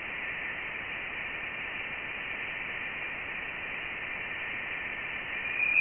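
Voyager 1 Plasma Wave Science data from interstellar space, turned into sound: a steady static hiss with a faint high tone running through it. The tone grows louder just before the end.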